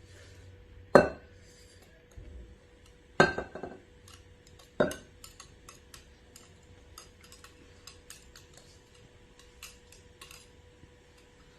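Kitchen utensil and mixing bowl clinking as one batter mixture is poured and scraped into another: three sharp clinks with a short ring, a second or two apart, then a run of light taps and scrapes. A faint steady hum lies underneath.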